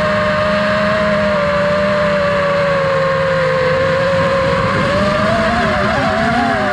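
FPV drone's motors and propellers whining steadily at high speed, the pitch wobbling up and down briefly about five seconds in.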